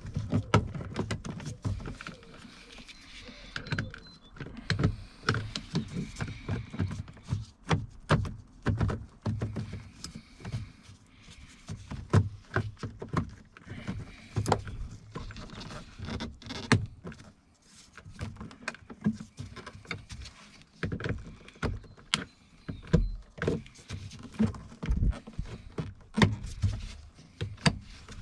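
Irregular clicks, knocks and rattles of a car's interior door trim panel being worked and pried loose by hand.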